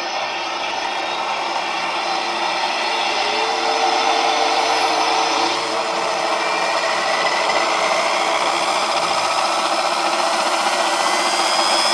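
Radio-controlled scale helicopter running, a steady mechanical whir with a whine that climbs slowly in pitch as it grows louder.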